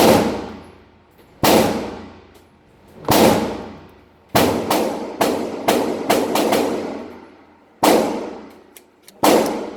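Gunshots at a shooting range, each with a long echoing decay. About a dozen shots at irregular spacing, with a quick string of five or six in the middle and a few faint clicks between shots.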